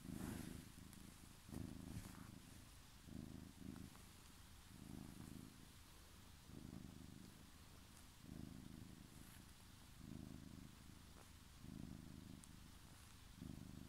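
Domestic cat purring softly and steadily, the purr swelling and easing with each breath about every one and a half to two seconds.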